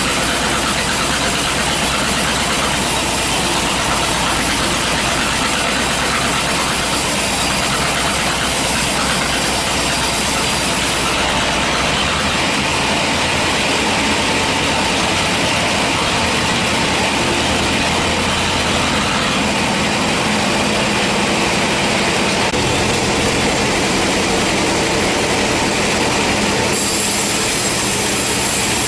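Band sawmill running steadily, its blade cutting through a hard teak log, a continuous loud mechanical noise; the sound shifts in character twice.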